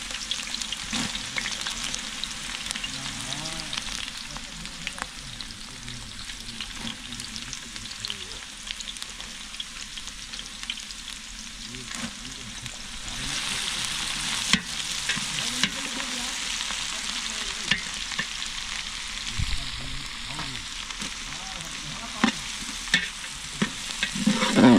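Sliced shallots and green chillies sizzling in hot oil in a large metal pot, a steady frying hiss that grows louder about halfway through. Near the end a metal ladle clinks against the pot as the contents are stirred.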